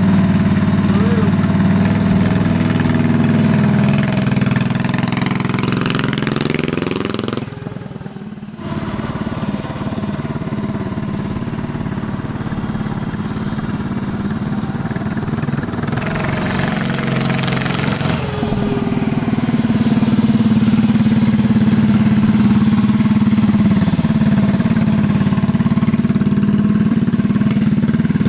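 Tillotson 212 single-cylinder four-stroke engine on a mini bike running under way, its pitch rising and falling as the throttle opens and closes. About eight seconds in the sound drops away sharply for under a second, then the engine comes back and holds a higher, steady pitch toward the end.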